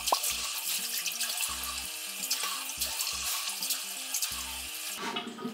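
Bathroom tap running into the sink while water is splashed onto the face to rinse off foaming cleanser; the running water stops about five seconds in.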